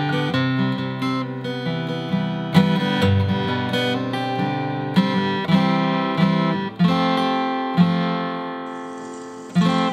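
Acoustic guitar music, with strummed chords and plucked notes that ring out.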